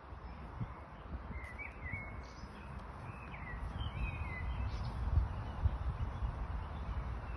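Small birds chirping in short, quick calls, most of them in the first half, over a steady low rumble.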